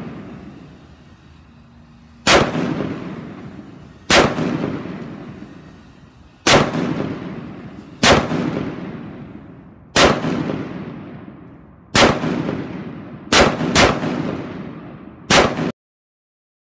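AR-style rifle firing nine aimed shots from a drum magazine, mostly about two seconds apart with two in quick succession near the end. Each crack rings out and dies away over a second or so. The sound stops abruptly just before the end.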